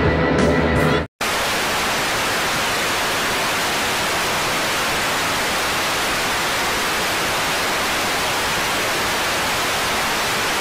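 Music with singing cuts off about a second in. After a brief moment of silence, a steady, even hiss of static noise continues without change.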